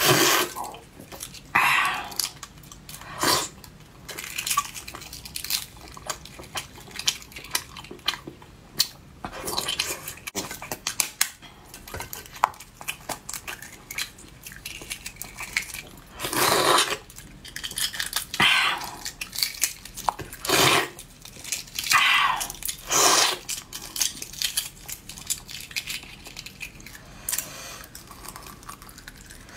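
Eating balut (duck embryo eggs): scattered clicks and taps of eggshell and utensils, several loud slurps of the broth inside the egg, and chewing.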